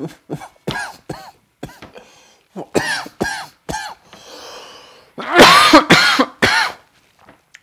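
A man coughing repeatedly after inhaling cannabis smoke from a pipe: a run of short coughs, a breath drawn in, then a harder, louder fit of coughs into his elbow about five seconds in.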